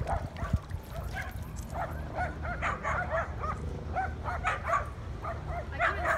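A dog yipping and whining in a quick run of short, rising-and-falling cries, thickest in the second half.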